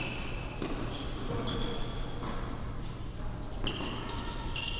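Tennis rally on an indoor hard court: a string of sharp pocks from the ball striking rackets and bouncing, about a second apart, each ringing briefly in the large hall.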